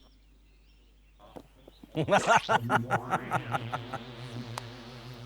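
Brief near silence, then a man's suppressed chuckling: a run of short snickering laugh pulses starting about two seconds in that trails off into a low held giggle.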